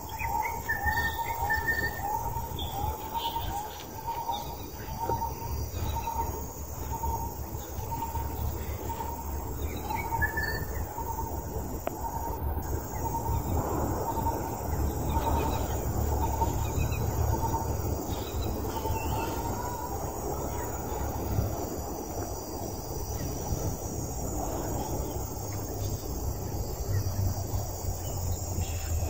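Outdoor ambience: a bird calling in a quick series of short, repeated chirps, about two a second, for the first ten seconds or so, over a steady high insect drone and a constant low rumbling noise.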